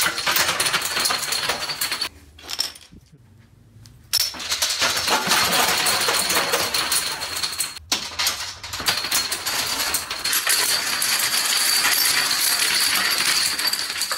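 A chain of toppling dominoes, a dense rapid clatter of clicks. It stops for about two seconds shortly after the start, starts again, and breaks off briefly once more about halfway through.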